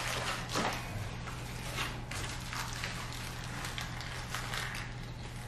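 Paper sandwich wrapper and cardboard food box rustling and crinkling as a wrapped sandwich is lifted out, followed by close-up biting and chewing. Irregular crackles, busiest in the first second.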